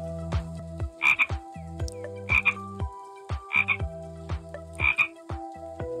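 A toad calling: four short croaks evenly spaced about a second and a quarter apart.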